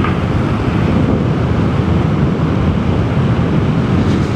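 Steady wind rush on the microphone over the running engine and road noise of a Vespa GTS 300 scooter being ridden.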